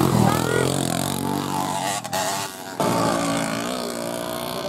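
Small two-stroke moped engine running, its pitch wavering. The sound drops away briefly about two seconds in, then returns as a steady engine note.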